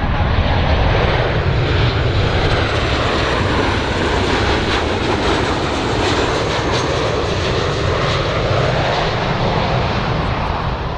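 Jet airliner engines on landing approach: a steady rushing noise with a faint high whine, easing off slightly near the end.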